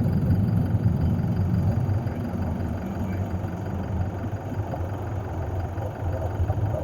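A vehicle engine idling with a steady low hum that eases off slightly about two seconds in.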